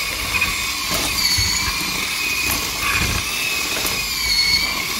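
Electric hand mixer with spiral dough hooks running through challah dough in a stainless-steel bowl: a steady motor whine that wavers slightly in pitch, with a few light clicks.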